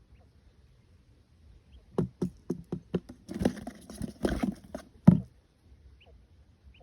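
A quick run of about a dozen knocks and taps with rustling between them, ending in one louder knock about five seconds in.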